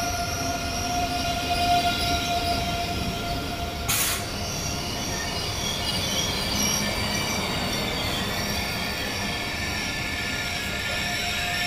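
Renfe AVE Series 103 high-speed train rolling slowly past along the platform as it pulls into the station, giving a steady high whine made of several pitches over a low running rumble. A single sharp click about four seconds in.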